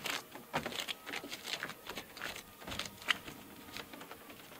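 Irregular light knocks and scrapes of wood as a wooden barn cupola is shoved and tipped along boards laid on the roof sheathing.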